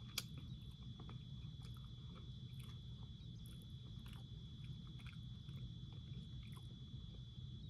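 Faint chewing of fried herring, with soft wet mouth clicks and one sharper click about a quarter second in, over a steady low hum and a thin high whine.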